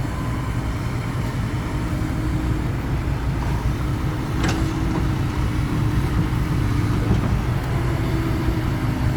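Hydraulic excavator's diesel engine running steadily with a low drone, showing no strain while it works. A short sharp click comes about four and a half seconds in.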